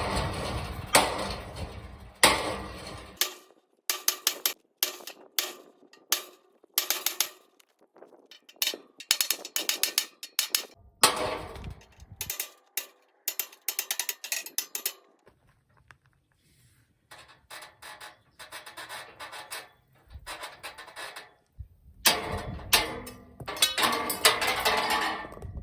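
Sledgehammer striking the bent bars of a metal gate to knock them straight: repeated ringing metal clangs in clusters, with a lull of a few seconds past the middle.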